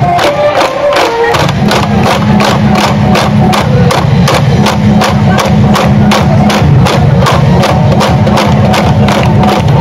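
High-school baseball cheering band playing a brass-and-drum cheer song, with a fast steady drumbeat; the low brass comes in about a second in.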